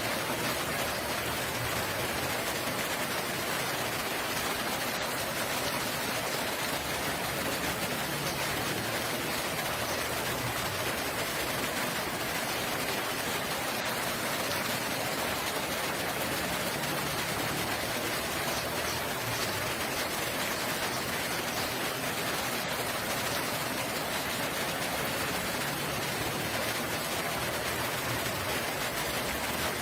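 Steady rain falling and pattering on surfaces, an even hiss with no change in strength.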